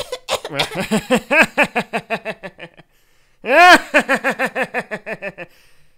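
A man's voice doing an exaggerated cartoon-villain laugh in rapid, evenly spaced ha-ha pulses, in two bouts with a short break about three seconds in. The laugh is an imitation of TV host Joko Winterscheidt's laugh.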